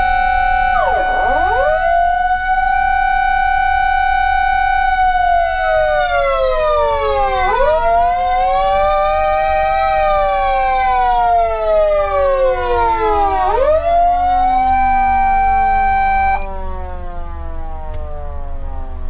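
SAP-520FB electronic siren amplifier sounding a fire-engine siren. A steady held tone dips sharply and recovers about a second in, then falls and rises in slow wails. The main tone cuts off about 16 seconds in, leaving a fainter tone sliding slowly down.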